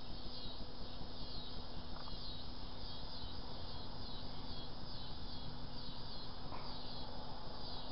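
A regular, repeating high chirp from a calling animal in the background, over a low rumble of handling noise on the microphone. A faint click comes about six and a half seconds in.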